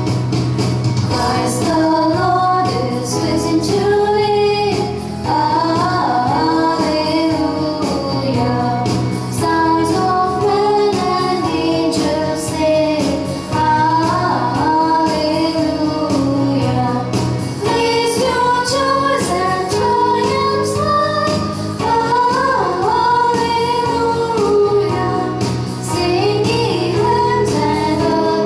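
A woman singing a hymn over instrumental accompaniment.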